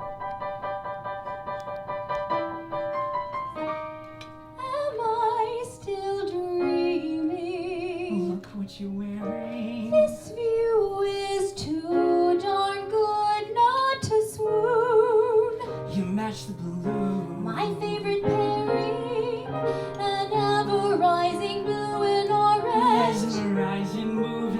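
Grand piano playing quickly repeated chords, then a woman starts singing with a strong vibrato about four and a half seconds in, the piano accompanying her.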